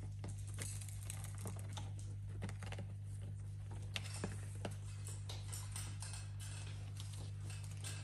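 Scattered light clicks and taps of an eclectus parrot and a caique playing with toys, over a steady low hum.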